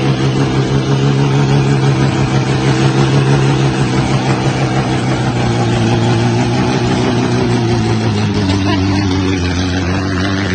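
Engine of a stripped-down, roofless old sedan held at high, steady revs while its rear wheel spins in the dust in a burnout. Its pitch drops a little about eight seconds in.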